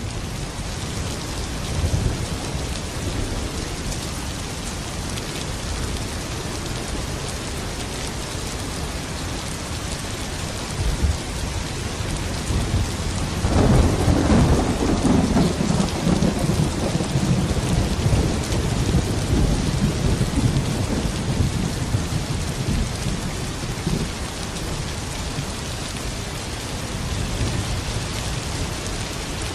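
Steady heavy rain falling, with a roll of thunder rumbling in about thirteen seconds in and slowly dying away.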